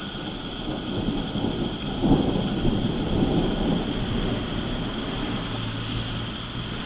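Thunder rumbling: a low roll that swells about two seconds in and fades away over the next few seconds.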